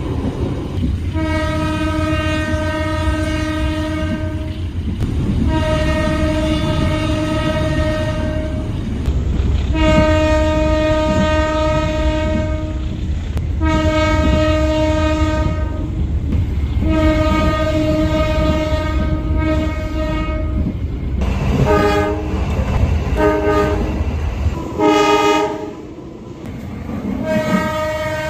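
Indonesian diesel locomotive horn sounding the Semboyan 35 warning signal, heard from the vestibule of the moving train. It gives about five long blasts of roughly three seconds each, then several short blasts, over the rumble of the train underneath.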